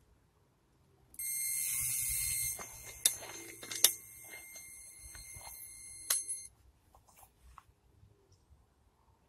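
Electronic carp bite alarm sounding one continuous high tone as a carp runs with the bait and pulls line off the reel. It is loudest for its first second and a half, continues more quietly with a few sharp knocks, and stops suddenly about six and a half seconds in.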